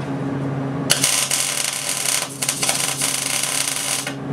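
MIG welder arc crackling for about three seconds as a tack or short bead is laid on steel plate, starting about a second in and stopping abruptly near the end. The welder has just been set a bit hotter with more wire feed. A steady low hum runs underneath.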